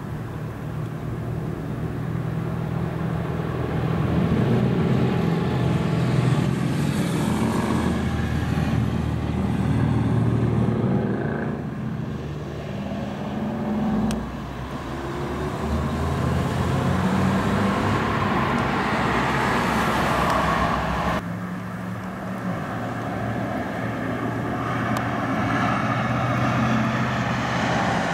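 Steady rumble of engines with low droning tones and a few sliding pitches. The sound changes abruptly twice, about halfway and about three quarters of the way through.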